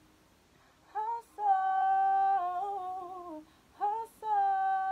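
A single unaccompanied voice sings two wordless phrases into a studio microphone. Each phrase starts with a short note and a quick sharp breath in, then holds a long note that breaks into a wavering run falling in pitch. The first phrase comes about a second in, the second just before four seconds.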